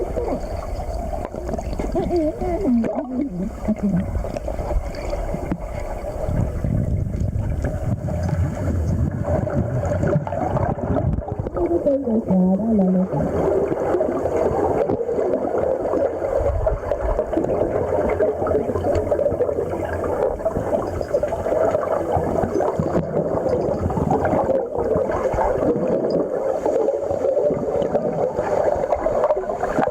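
Underwater sound of the sea with a boat's engine running as a steady drone and water rushing. Twice a short low tone slides downward, once about three seconds in and again about twelve seconds in.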